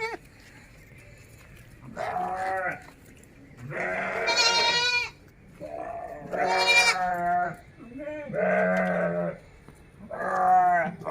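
Goats bleating: about five separate calls of around a second each, a few seconds apart.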